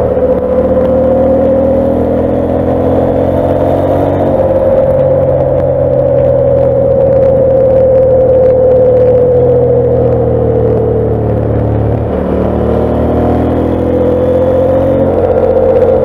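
KTM 890 Adventure's parallel-twin engine pulling the bike along at speed. Its note steps up about four seconds in, sinks slowly over the next several seconds, dips sharply near twelve seconds, then climbs again as the bike accelerates.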